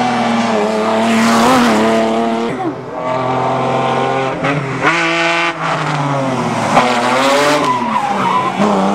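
BMW E30 325i's straight-six engine pulling hard at high revs. The pitch climbs and drops several times through gear changes and lifts, with some tyre squeal as the car slides through the bends.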